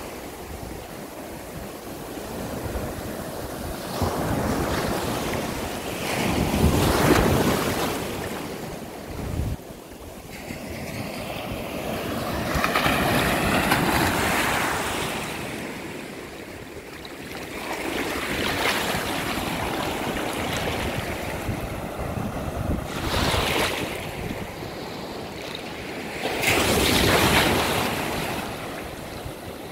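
Small surf breaking and washing up a sandy beach at the water's edge, its rush of foam swelling and easing every few seconds as each wave comes in.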